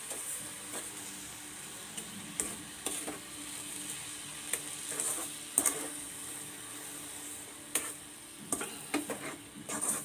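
A spoon stirring and scraping a pan of grated coconut and sugar simmering in water, with a steady sizzle and irregular clinks of the spoon against the pan. The mixture is being cooked down until it thickens for coconut burfi.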